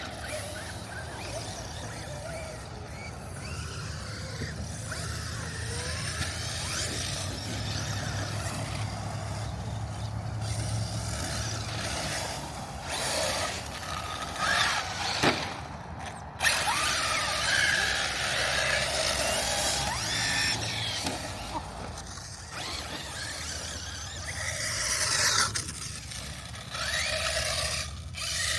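Traxxas Mini Maxx RC monster truck being driven, its electric motor whining up and down with the throttle and its tyres scrabbling over the ground. A couple of sharp knocks come about halfway through.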